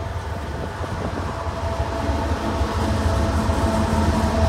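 Union Pacific diesel-electric freight locomotives passing close by: a steady low engine rumble with a steady high whine, growing louder about halfway through as the lead unit draws level.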